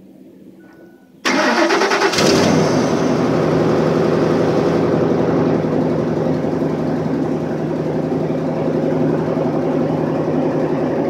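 Cold start of a 2006 Ford F-250's 5.4-litre three-valve Triton V8: about a second in the starter cranks briefly, the engine catches, and it settles into a steady idle.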